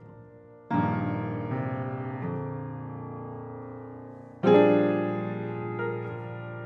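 Piano playing slow, sustained chords: a full chord struck about a second in and another about four and a half seconds in, each ringing and slowly fading, with a few quieter notes changing between them.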